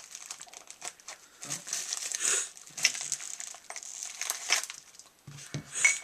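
Packaging wrap being crinkled and pulled apart by hand, a run of irregular crackles and rustles.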